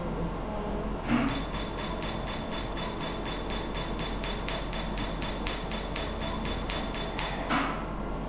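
Tattoo-removal laser firing pulses, a fast even train of sharp snapping clicks at about six a second with a steady high beep from the machine while it fires. It starts about a second in and stops near the end.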